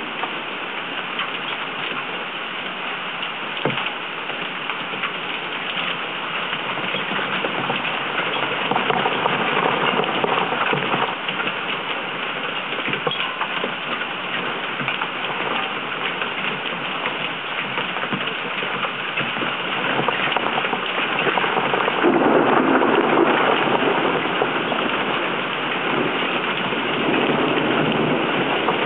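Hurricane rain beating on a waterproof compact camera left out in the storm: a dense, steady rush of rain with drops ticking on the housing close to the microphone. It swells louder about two-thirds of the way through.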